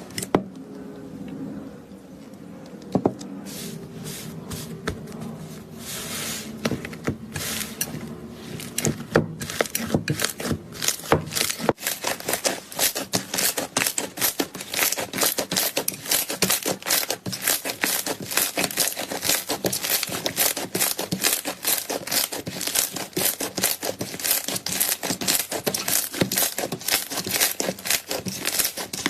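Slime being squeezed, stretched and poked by hand, making wet crackling clicks and pops. The clicking starts softer and becomes dense and rapid, several a second, about a third of the way in.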